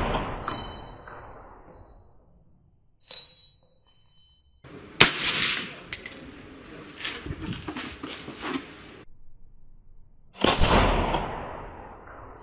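Suppressed shots from an AR-15 in .223 Rem with a Steel Horde QD-T titanium suppressor. The tail of one shot opens the clip, and further shots come about five seconds in and about ten and a half seconds in, each a sudden report that dies away over a second or two. Short metallic pings ring out just after the shots.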